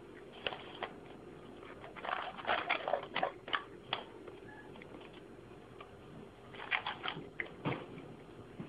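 Cat eating wet cat food: quick wet chewing and smacking clicks in two bouts, one about two seconds in and another near the end.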